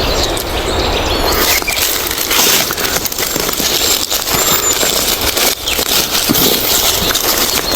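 Dry leaf litter and twigs rustling and crackling irregularly as hands and feet work through the forest floor to pick bolete mushrooms.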